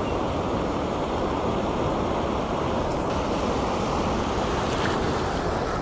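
Steady rushing of river water spilling over a low weir, with wind buffeting the microphone.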